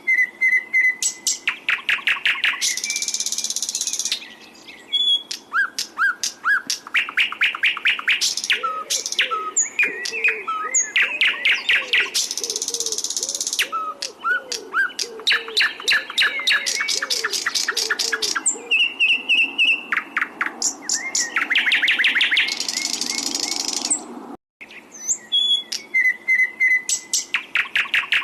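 A songbird singing one repeated phrase about every five to six seconds. Each phrase is a rapid run of sharp, clicking notes that ends in a long, harsh buzzing trill. The song breaks off briefly about 24 seconds in and starts again with the same phrase.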